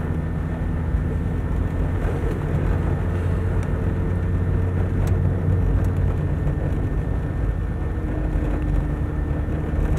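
Car engine and road noise heard from inside the moving car's cabin: a steady low rumble, with a faint hum that drops lower about two-thirds of the way through.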